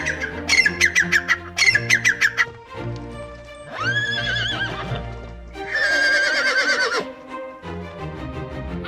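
A Natal spurfowl gives its harsh, rapid, repeated cackling call for the first two and a half seconds. Then a horse whinnies twice, each neigh about a second long and wavering in pitch, the second louder. Background music runs underneath.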